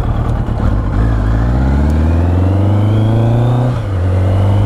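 Motorcycle engine accelerating, its pitch rising for about three seconds, then dropping sharply with a gear change and running on steady.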